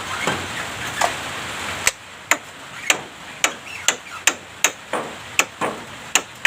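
Javan myna making a run of sharp clicking, knocking calls, about two to three a second, each with a short falling tone. They start about two seconds in, after a stretch of hissy background with faint chirps.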